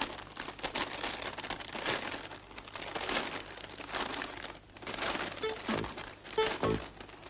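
Paper crinkling and rustling as a crumpled airmail letter unfolds and flattens out. Short plucked-sounding music notes start coming in about five and a half seconds in.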